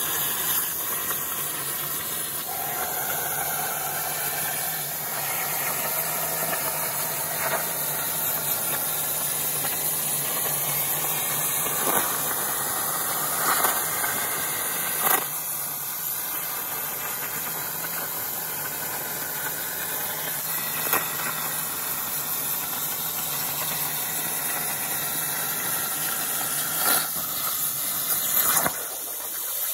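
CNC plasma cutter cutting 3 mm mild steel: a steady loud hiss from the arc, with a few sharp cracks and pops. The hiss drops away near the end.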